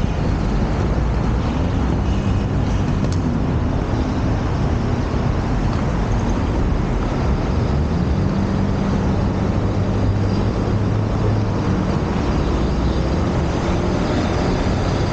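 Steady rumble of inline skate wheels rolling over sidewalk pavement, mixed with the running engines and tyres of passing road traffic.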